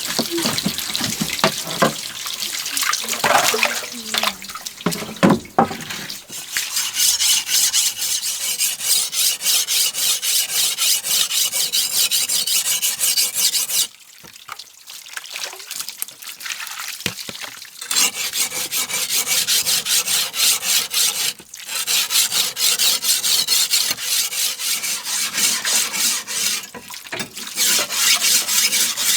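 Rapid rhythmic scraping strokes, about three a second, stopping briefly now and then, with some water splashing and clicking at the start.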